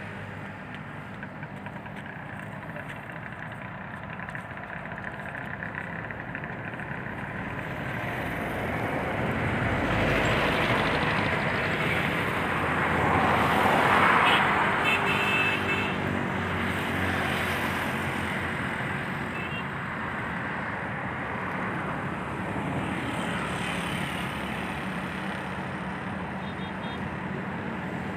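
Road vehicle passing: a steady rumble that swells to a peak near the middle and then fades back.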